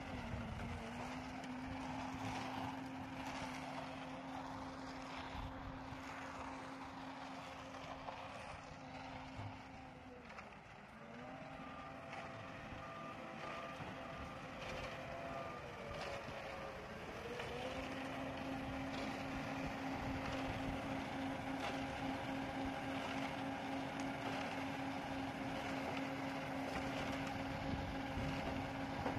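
Diesel engine of a Schwing Stetter SLM 4300 self-loading concrete mixer running steadily at working revs. Its speed sags and recovers twice, around 10 s and again about 16 s in. A series of warning beeps sounds for a few seconds in between, and the engine runs a little louder near the end.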